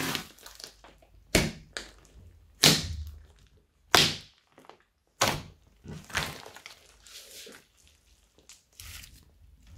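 Hands pressing and poking into a thick slime studded with sprinkles and beads, making sudden squishy pops about every second and a quarter. The pops give way to softer, scattered squishing for the last three seconds.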